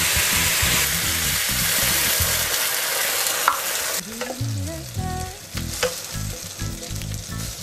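Loud sizzling as sake hits a hot stainless tamagoyaki pan of browned onions, the alcohol flaring and burning off. About four seconds in the sizzling stops short, leaving background music and a few light clicks.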